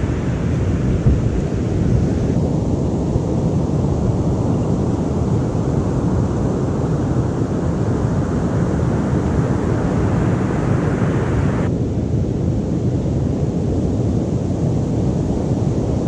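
Strong wind buffeting the microphone over the steady wash of heavy ocean surf, a loud, low, rumbling noise.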